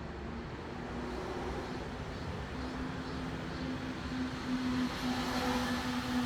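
Steady low mechanical hum over a rushing noise that swells about five seconds in.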